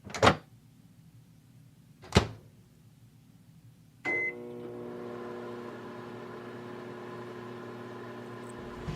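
Two sharp knocks about two seconds apart, then a short beep and a microwave oven starting up and running with a steady hum.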